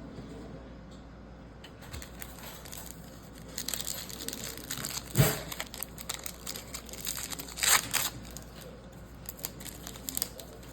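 A trading card pack wrapper being torn open and crinkled by hand, irregular crackling with a sharp snap about five seconds in.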